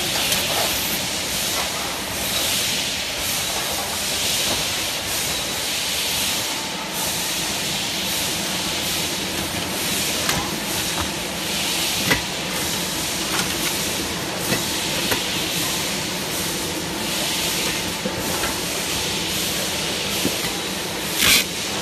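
Shrink-wrap packaging machine running: a steady hissing rush from the heat-shrink tunnel and conveyor, swelling every few seconds, with a few sharp clicks and knocks and one louder knock near the end.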